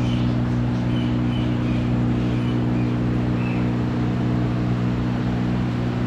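Large air cooler running: a steady rush of fan air over a low motor hum. A bird chirps repeatedly in the first few seconds.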